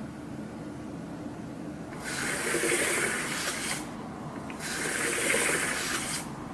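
Two long hisses, each about a second and a half long, with a short gap between them.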